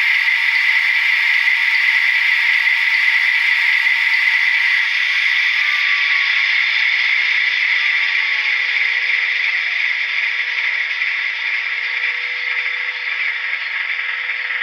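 Sound-decoder playback of an SNCF BB 67000 diesel locomotive through an HO-scale model's small onboard loudspeaker: a steady rattling, hissy mechanical sound with a faint falling whine partway through, easing off near the end.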